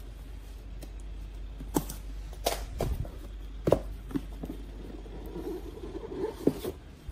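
Cardboard laptop box being handled: a handful of sharp taps and knocks as it is lifted and gripped, then a soft rubbing of cardboard on cardboard near the end as the outer sleeve slides.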